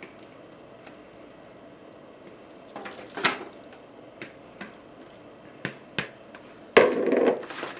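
Kitchen handling noises from a mixing bowl and baking pan: scattered light clicks and knocks, then a louder, longer thud near the end as the meatloaf mixture is moved into the pan.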